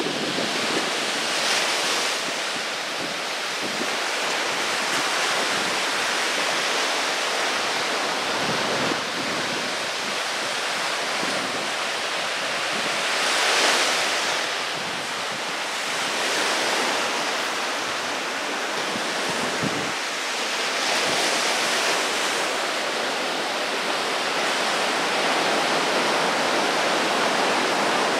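Small waves breaking and washing up a sand beach: a steady surf hiss that swells and eases every few seconds as each wave comes in, loudest about halfway through.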